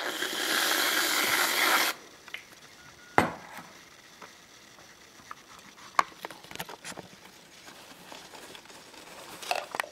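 Aerosol whipped-cream can spraying cream from its nozzle: a loud hiss for about two seconds that cuts off sharply. About three seconds in comes a single sharp knock, followed by faint scattered clicks and rustles.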